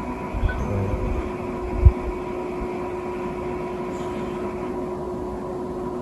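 Steady mechanical room hum carrying two steady tones, one low and one higher, with a single low thump about two seconds in.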